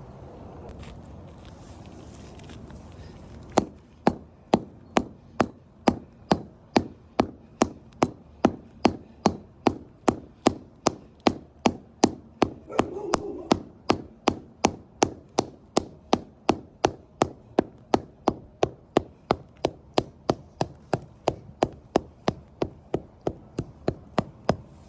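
Steady hammer blows on pavers, about two a second, struck evenly for some twenty seconds after a short lead-in of low background noise.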